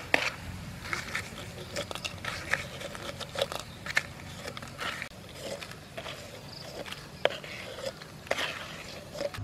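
Wooden spatula stirring and scraping fried slices around a steel wok, in a string of irregular scrapes and clicks.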